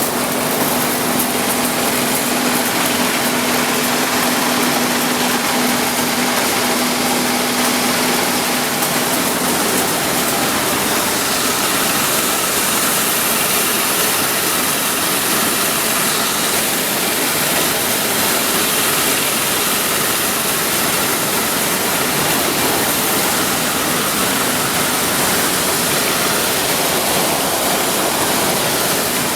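Corn milling plant machinery running at full speed: a loud, steady rush of machine noise with a steady hum that fades out about ten seconds in.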